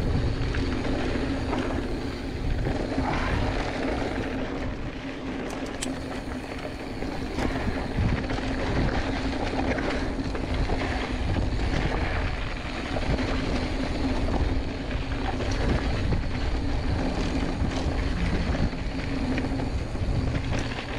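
Giant Fathom hardtail mountain bike riding fast over dry dirt and gravel singletrack: the knobby tyres rolling with a steady rumble and a low hum, and small jolts and rattles as the unsuspended rear end goes over loose rock, picked up close from a chest-mounted camera.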